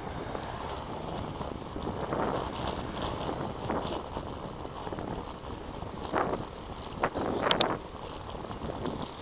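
Riding a bicycle along a paved road: steady rushing wind and road noise, swelling a few times. About seven seconds in come several sharp rattling clicks, the loudest sounds here.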